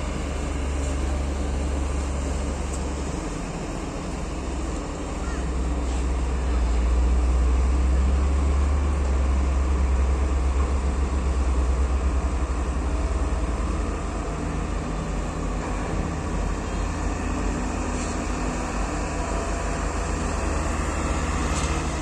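Diesel engines of heavy cargo trucks, a steady low rumble that grows louder for several seconds in the middle.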